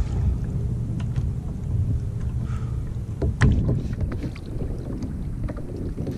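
Wind buffeting the microphone and water slapping against a kayak's hull in a choppy bay, with a few sharp knocks; the loudest knock comes about three and a half seconds in.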